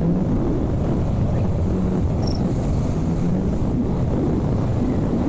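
Motorcycle riding at road speed: steady wind rush on the microphone over the low hum of the engine.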